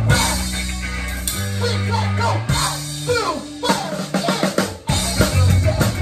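Live rock band heard close up from the drum kit: drums and cymbals loud over sustained bass and electric guitar. A crash opens the passage, the middle is sparser with held notes and falling pitch sweeps, and the drums come back in with quick hits about five seconds in.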